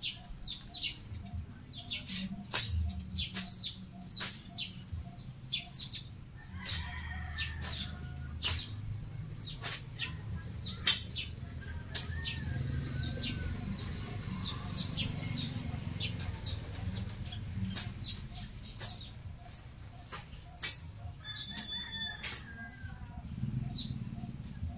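Machete strokes chopping through grass and weeds: sharp swishes and chops at irregular intervals. Birds chirp throughout.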